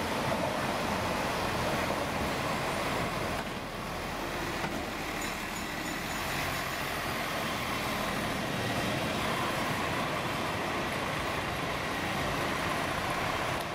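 Articulated Mercedes-Benz Citaro city bus running as it drives past close by, with steady city street traffic noise.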